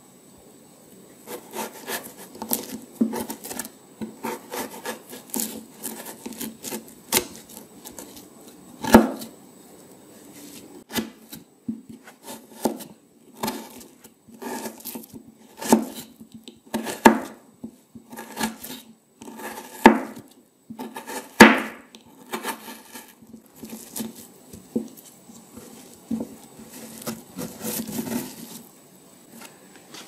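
A kitchen knife carving peeled winter melon: scraping and rubbing as the blade shapes the firm flesh, then a series of separate crisp cuts from about nine seconds in.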